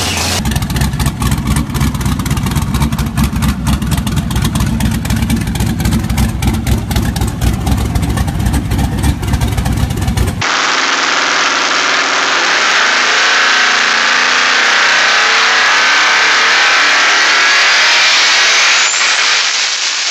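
Turbocharged race engine running with a rapid, choppy low beat. About ten seconds in it cuts to a loud, steady rushing sound of a turbo engine held at high revs, with a faint rising whistle near the end.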